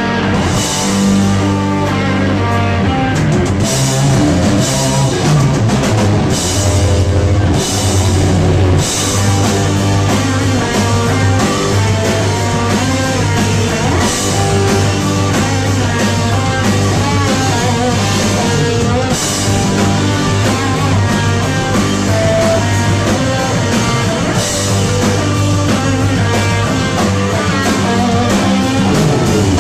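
Loud live rock band playing guitar and drum kit, with the cymbals crashing at intervals.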